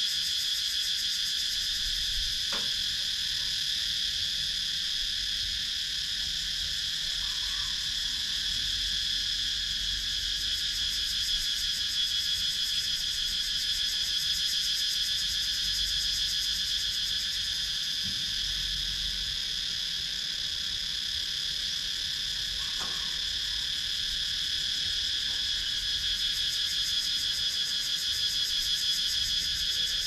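Cicadas singing in a steady, high-pitched chorus with a fast pulsing texture, unbroken throughout.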